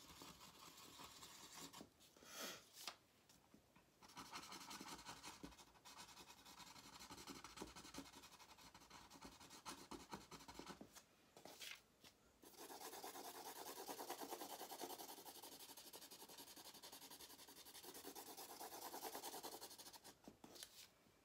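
Faint scratching of a marker tip rubbing back and forth over dried painted paper, coloring in. It goes in steady runs of strokes, broken by a few short pauses where the pen lifts.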